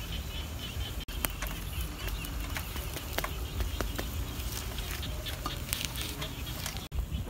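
Small wood fire crackling, with irregular sharp pops and snaps over a steady low rumble.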